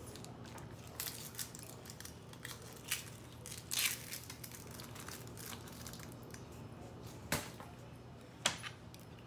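Crinkling and crackling as a plastic zipper storage bag packed with leftover bell peppers and onion is handled, then a sweet onion with its dry papery skin is worked in the hands, in scattered sharp rustles, the loudest about three and four seconds in and two more near the end.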